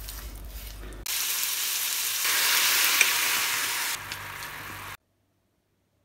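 Chicken frying in a frying pan: a steady, loud sizzle that gets quieter about four seconds in and cuts off abruptly about a second later.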